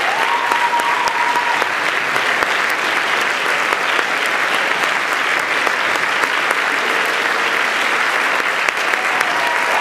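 Audience applauding steadily: many people clapping at once in a dense, unbroken patter.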